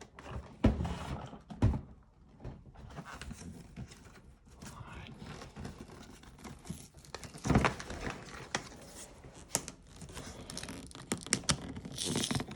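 Dremel 3000 kit packaging being opened and handled: rustling and crinkling, with several sharp knocks, the loudest about seven and a half seconds in, and a tearing sound near the end.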